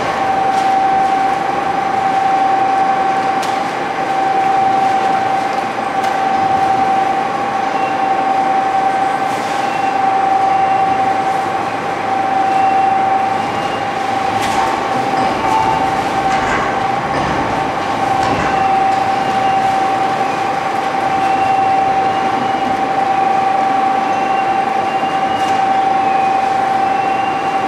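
Double-shaft shredder driven by two 30 kW electric motors, running continuously while it shreds baled cardboard. A steady high whine sits over a dense shredding noise, with a few sharp clicks.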